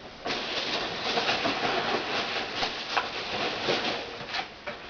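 Rustling and crinkling of packaging as items are handled and lifted out of a shipping box, with scattered small clicks and taps. It starts just after the beginning and eases off near the end.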